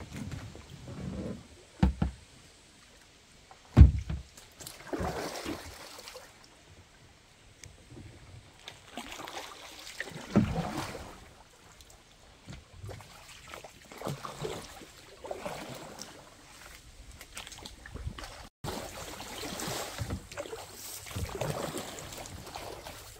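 Kayak paddle strokes dipping and splashing in river water, an uneven swish every second or two. Two sharp knocks, about two and four seconds in, are the loudest sounds.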